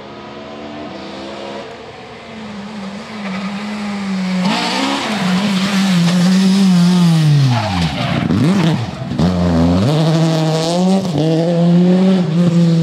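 Classic Ford Escort rally car's engine at high revs, growing louder as it approaches and passes close. Midway the revs drop sharply and pick up again as the car goes through the corner, with tyre noise from the slide, then it pulls away at high revs.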